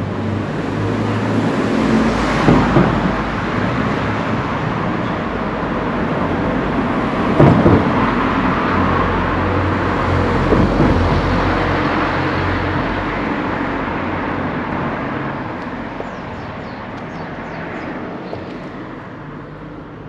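Road traffic: a motor vehicle's engine and tyres going by on the street, building to its loudest through the middle and fading away over the last few seconds.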